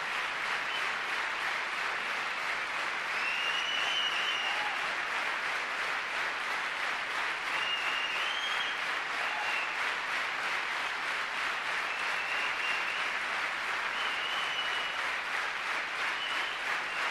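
Concert audience applauding steadily, a dense even clapping, with a few brief high tones cutting through now and then.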